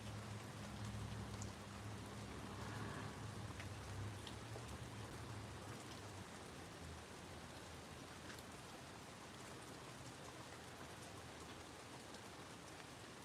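Steady rain falling, with scattered single drops tapping close by. A low steady hum sits underneath and fades out about six seconds in.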